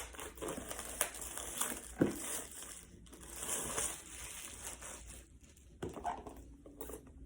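Packaging crinkling and tearing as an iPad box's wrapping is worked open by hand. The rustles are irregular, with sharp crackles about one and two seconds in.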